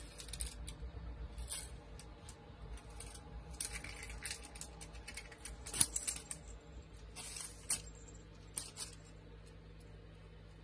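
A cat toy dangling on a string, batted and pawed by a cat: short, irregular bursts of light, high jingling, with one sharp tap a little past halfway.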